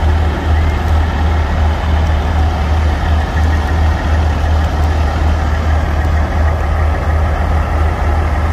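Heavy diesel semi-truck engine idling, a steady low drone.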